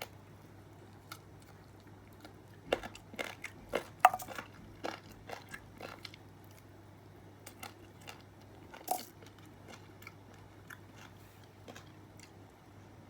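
Someone eating fried rice with a plastic spoon: a run of sharp clicks and scrapes of the spoon against the food container, with chewing. The clicks bunch together a few seconds in, then a few scattered ones follow.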